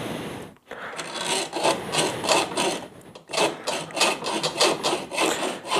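Hand hacksaw cutting through metal tubing in quick repeated back-and-forth strokes, with brief pauses about half a second and three seconds in.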